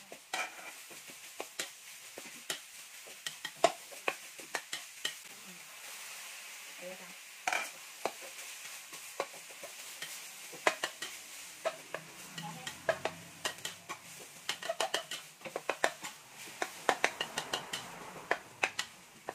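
Minced pork stir-frying in a wok over a gas burner: a steady sizzle with frequent sharp clacks and scrapes of a metal spatula against the wok.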